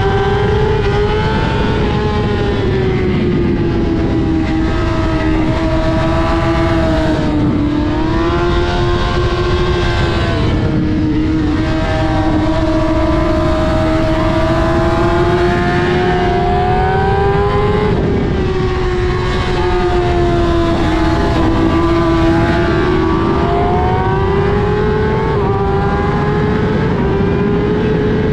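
Sport motorcycle engine held at high revs, its note drifting slightly up and down with small throttle changes, over a steady rush of noise.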